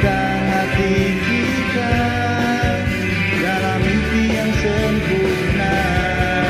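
Pop-rock song music from a karaoke backing track, with a steady beat and held melody notes.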